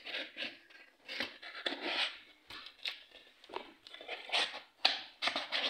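A small cardboard gift box being opened and handled: a string of irregular rustles and scrapes of cardboard and paper.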